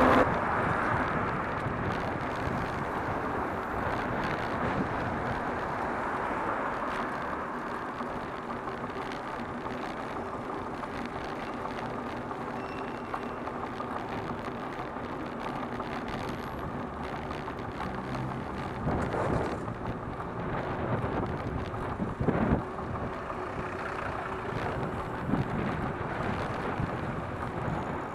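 Street traffic heard from a moving bicycle: a steady wash of car engines and tyre noise on the road, with a few brief louder moments in the last third.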